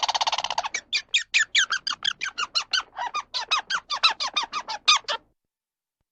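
A bird calling: a quick rattling trill, then a fast run of about twenty short, sharp notes, each sliding down in pitch, about five a second, stopping a little after five seconds in.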